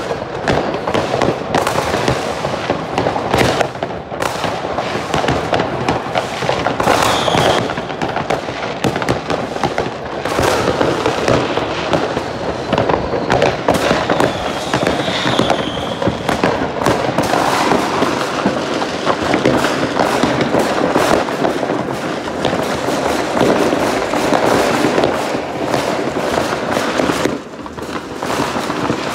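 Many fireworks going off at once across a neighbourhood: a continuous, dense crackle of bangs and pops with no let-up, and a few short whistles among them.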